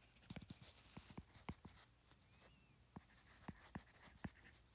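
Faint, irregular ticks and light scratches of a stylus tapping and sliding on a tablet's glass screen as notes are handwritten, with a brief pause near the middle.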